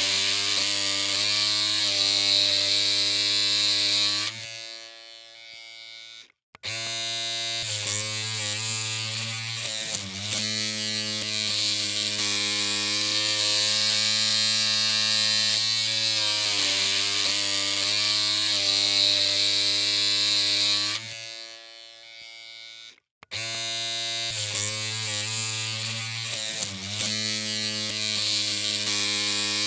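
Electric hair clippers running with a steady low, buzzy hum. Twice the hum dies away and stops for a moment, then starts again at full strength.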